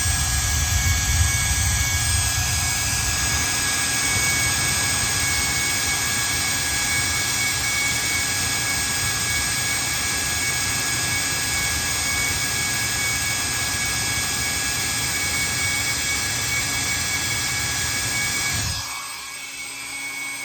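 Hair dryer running steadily: a loud rush of blown air with a constant high motor whine, switched off about nineteen seconds in.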